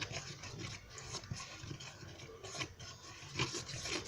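A utensil scraping and stirring in a small container, mixing toothpaste and flour into a dough, in short irregular strokes.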